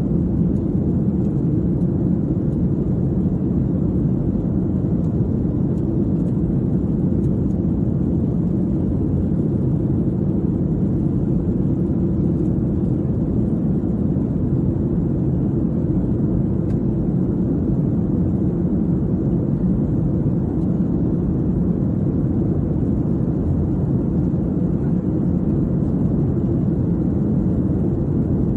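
Steady low cabin drone of a Boeing 737-800 in flight: its CFM56 jet engines and the air rushing past the fuselage, heard from inside the cabin.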